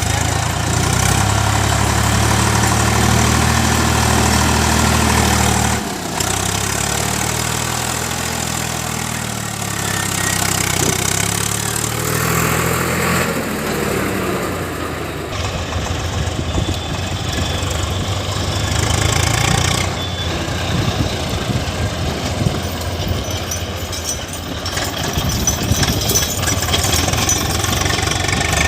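Diesel engine of a tractor working a backhoe attachment. It runs at raised revs for the first six seconds, drops suddenly, and then runs on unevenly at lower revs as the load changes.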